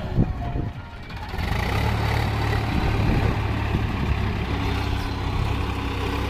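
Sonalika 750 DI tractor's diesel engine running steadily under load as it pulls a fully loaded trolley. The engine sound dips briefly about a second in, then holds steady.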